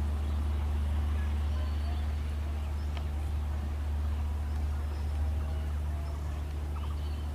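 Steady low rumble of a diesel locomotive, even in level, with faint voices in the background.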